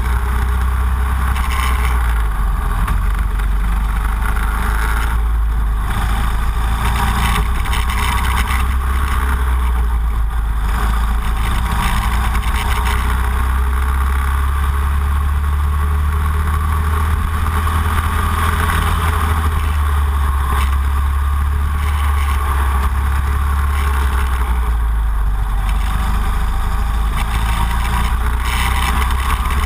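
Racing kart engine running at speed on track, heard from an onboard camera mounted behind the driver, with a steady low rumble throughout.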